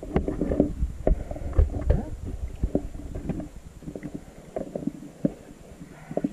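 Muffled water movement around an underwater camera in shallow water: a low, uneven rumble with irregular knocks and clicks.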